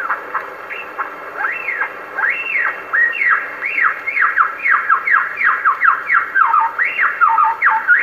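Superb lyrebird song played from an old 78 rpm record on an acoustic Victrola gramophone: a fast run of loud whistled notes that swoop up and down, coming closer together toward the end, over steady record surface hiss.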